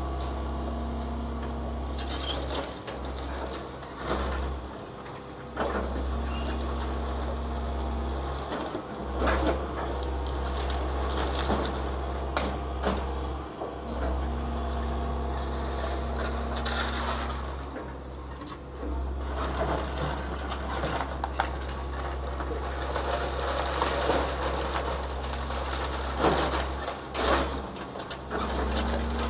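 Excavator diesel engine running steadily, with repeated cracks and crunches of building debris being smashed and moved during demolition.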